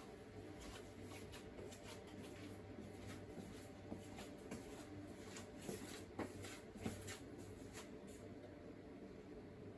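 AQUA refrigerator running with a faint, steady low hum, with scattered small clicks and ticks over it.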